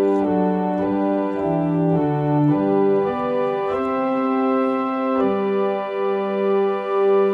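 Content Celeste 340R digital organ playing slow, sustained chords on a string stop with its celeste rank drawn. The celeste is tuned a little sharp, which gives the tone a gentle movement. The chords move every half second or so at first, then are held longer.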